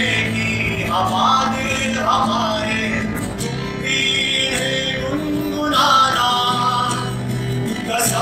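A man singing live into a microphone while strumming chords on an acoustic guitar.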